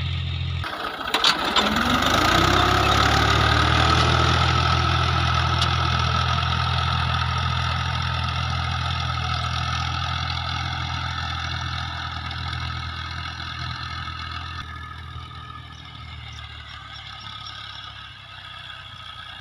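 Tractor diesel engine running under load as it pulls a tine cultivator and levelling plank through tilled soil. The engine note rises over the first few seconds, with a couple of knocks about a second in, then the sound slowly fades as the tractor moves away.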